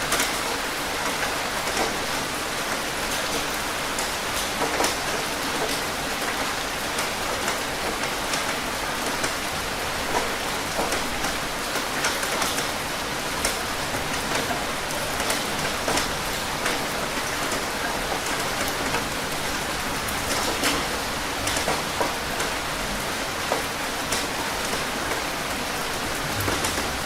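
Steady rain falling on a surface, an even hiss dotted with many sharp individual drop impacts.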